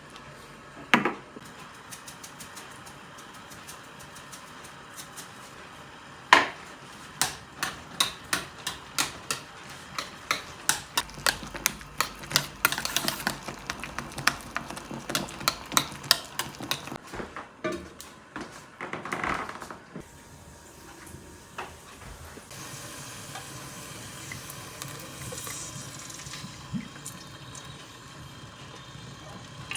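Kitchen utensil work: two single sharp knocks, then a long run of quick knocks and clinks, about two or three a second, followed by a softer steady hiss.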